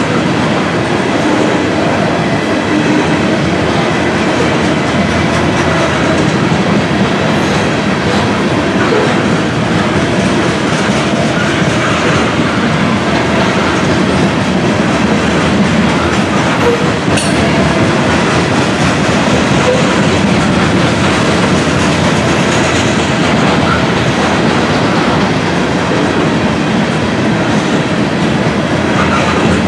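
Covered hopper cars of a freight grain train rolling past: a loud, steady rumble and clatter of steel wheels on the rails.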